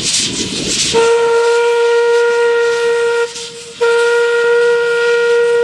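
Steam whistle of a 1907 Fowler 0-6-2T sugar cane steam locomotive sounding two steady blasts, each about two seconds long with a short break between. The blasts come over the hiss of steam escaping at the cylinders, which is heard on its own in the first second.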